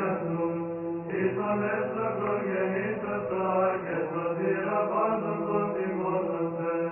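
Orthodox church chant laid over the film: voices singing a slow melody over a held low drone.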